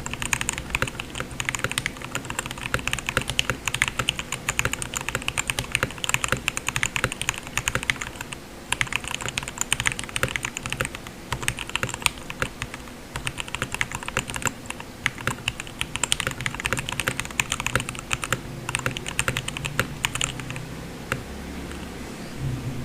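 Typing on an RK61 mechanical keyboard with Gateron Yellow linear switches (milky top, black bottom housing), the case foamed and tape-modded and the stabilizers Holee-modded and lubed: a fast, steady run of keystrokes with a short pause about eight seconds in, thinning out and stopping near the end. A low steady hum sits underneath.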